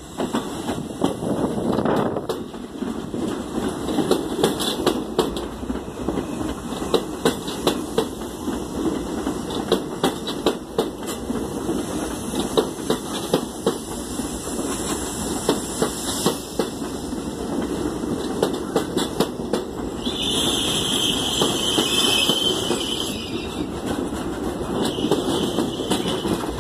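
R32 subway train passing on an elevated track, its wheels clacking rapidly and unevenly over the rail joints over a steady rumble. A high-pitched squeal joins in for a few seconds near the end.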